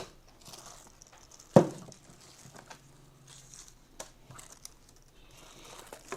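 Plastic packaging crinkling and rustling as it is handled, with a few clicks and one sharp knock about one and a half seconds in.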